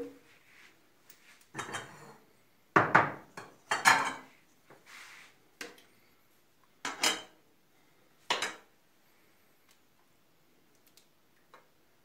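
Metal ladle clanking and scraping against a metal pot and a bowl as rice pudding is ladled out: about seven sharp clanks with short ringing, the loudest around three to four seconds in.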